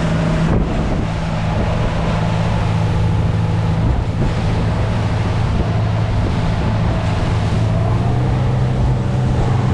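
Motorboat engine running steadily underway, with water rushing past the hull and wind on the microphone.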